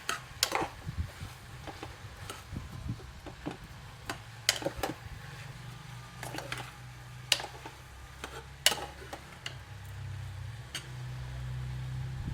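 A spoon stirring chopped beetroot and onion frying in oil in a pressure-cooker pot, with irregular sharp clicks and scrapes of the spoon against the metal pot. A low steady hum runs underneath and gets a little louder near the end.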